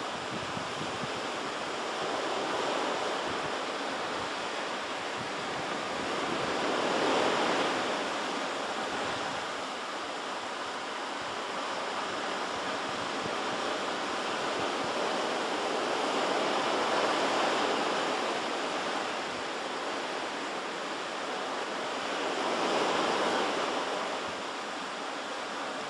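Pacific surf washing ashore in a steady rush that swells and ebbs, loudest three times as waves break.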